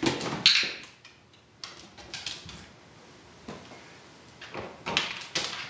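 Scattered light knocks and clicks: footsteps on a bare wooden floor, then hands at the wire door of a plastic pet carrier, with a brief rustle about half a second in.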